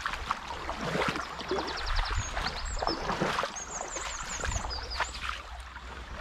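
Footsteps swishing and squelching through grass and soft wet ground, about one a second, over a low steady rumble. A small songbird sings high, quick chirps and a short rapid trill over them.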